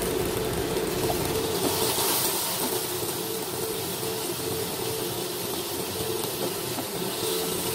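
Soy sauce and rice wine sizzling in a hot pan around a fried whole tilapia: a steady hiss, with a faint steady hum underneath.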